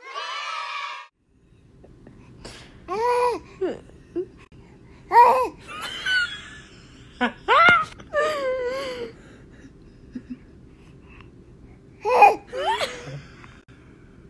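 A baby laughing and babbling in several short, high-pitched outbursts with gasps between them.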